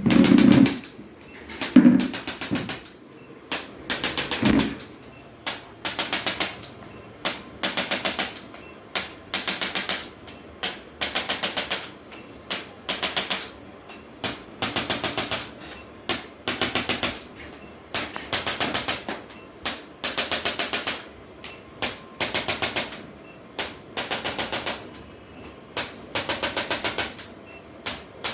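Rapid mechanical clicking in repeated short bursts, roughly one burst a second, each burst a fast rattle of even ticks.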